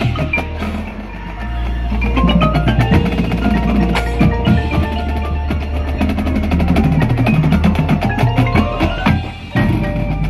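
Marimba playing quick runs of notes that climb in pitch about two seconds in and again near the end, among other mallet keyboards of the front ensemble. Drum and cymbal hits from the drumline sound underneath.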